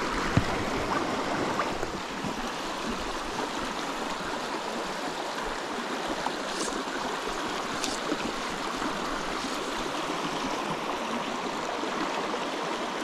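Shallow, low-running creek flowing over rocks: a steady rush of water, with a few faint clicks.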